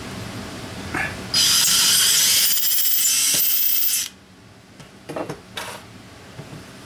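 Power drill running for nearly three seconds with a high whirr as its bit cuts into an aluminium intake manifold, finishing a hole to full depth. It then stops suddenly, and a couple of light knocks follow.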